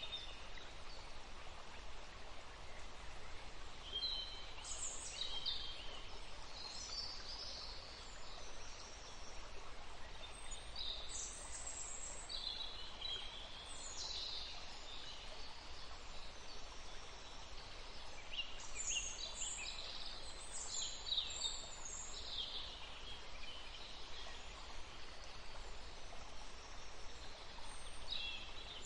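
Forest ambience: scattered bird calls, short high chirps coming in clusters, over a steady background hiss.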